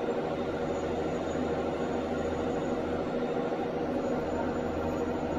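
Steady mechanical hum with a low drone, from a universal testing machine's drive running as its crosshead presses down on a barbell bar during a load test.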